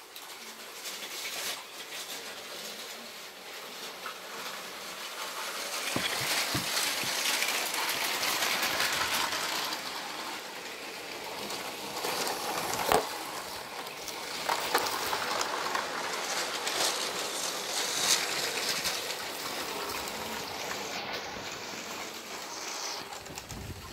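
Battery-powered LEGO trains running on plastic track: a steady whirring rattle of small motors and wheels with scattered clicks, louder in the middle as a train passes close.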